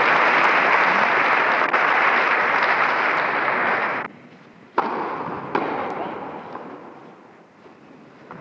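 Audience applauding, stopping abruptly about four seconds in. A sharp knock follows, then a shorter burst of applause that fades away.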